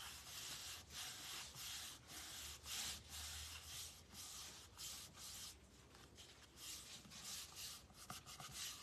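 A hand rubbing a paper hymnal page flat onto a board, pressing it into the Mod Podge glue beneath. The soft strokes come about two a second.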